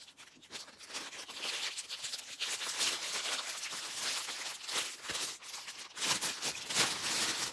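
Clear cellophane wrapping crinkling and rustling as it is pulled open by hand from around a bath bomb, loudest in bursts about three seconds in and near the end.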